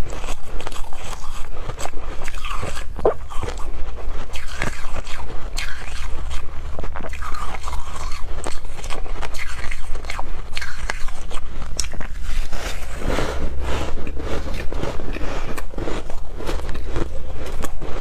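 Close-up biting and chewing of real snow: crisp, irregular crunching and crackling as the packed snow is bitten and crushed in the mouth, over a steady low hum.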